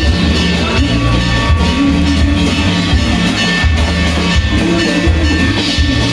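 Loud music with heavy drumming and percussion.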